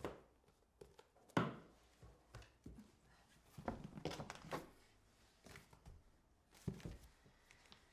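Books being handled and set down: a soft thump about a second and a half in, a cluster of knocks around four seconds, another near the end, with light rustling between.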